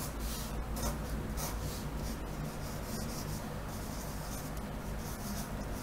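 Pencil lead scratching on drawing paper in a series of short strokes as lines are drawn, over a low steady hum.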